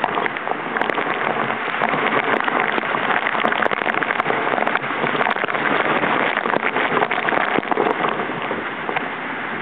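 Heavy storm rain beating down steadily, with many close drops striking as sharp little ticks.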